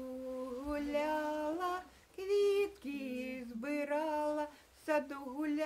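A woman singing a slow song unaccompanied, holding long notes in phrases of a second or two with short breaths between them.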